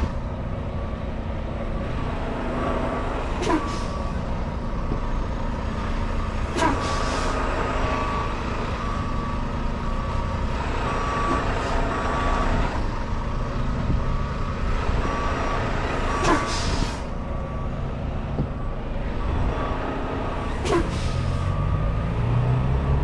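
Volvo semi truck's diesel engine running under a regular reversing beeper while the truck backs up. There are a few short air hisses from the brakes, and the engine revs up near the end.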